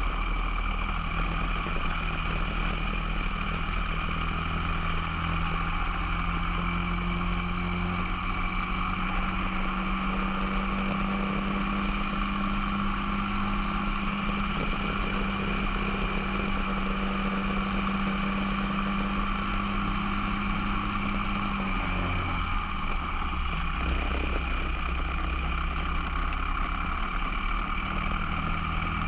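Briggs & Stratton 206 single-cylinder four-stroke kart engine at racing speed, heard from on board the kart, with its note slowly climbing. About three-quarters of the way through, the pitch drops sharply as the kart slows, then starts rising again near the end, over a steady rush of wind and road noise.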